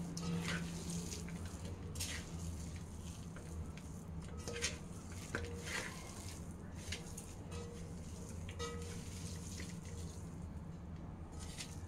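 Bare hand mixing and squeezing shredded boiled mutton with dry spice powders in a metal bowl: soft, irregular rustling and squishing.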